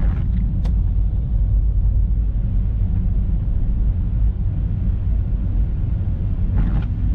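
Car being driven: a steady low rumble of engine and tyres on the road, with a couple of faint clicks about half a second in.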